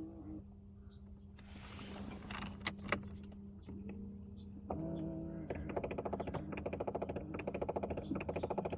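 An unwanted noise in a Mercedes-Benz W211: over a steady low hum, a small electric motor whines briefly about five seconds in. It then gives way to a fast, even clicking rattle of about ten strokes a second for the last few seconds.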